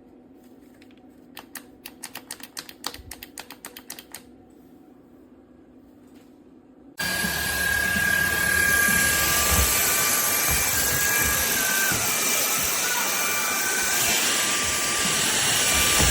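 A series of small plastic clicks as the SMOTURE cordless stick vacuum is handled and taken off its charger. About seven seconds in, its motor starts abruptly and runs steadily with a loud airy rush and a high whine.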